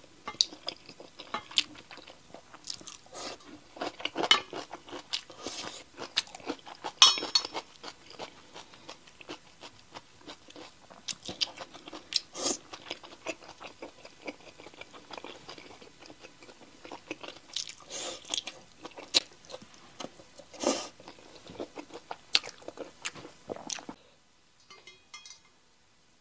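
Close-miked chewing of noodles and meat-stuffed fried gluten puffs: irregular wet mouth smacks and clicks that go on steadily, then drop away about two seconds before the end.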